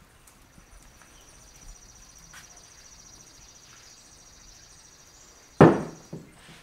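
A metal climbing stick is set down on a plywood workbench: one loud knock about five and a half seconds in, then a smaller knock half a second later. Under it, a steady high-pitched trill runs and stops around the time of the knock, with a few light taps from a paint-dabbing loofah before it.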